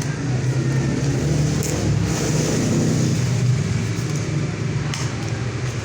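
An engine running nearby, swelling in the first seconds and then easing off, with a couple of light clicks.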